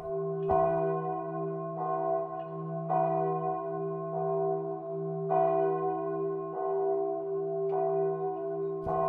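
Church bells ringing: a new strike every one to two seconds at uneven intervals, over a long-held ringing hum that carries on between strikes.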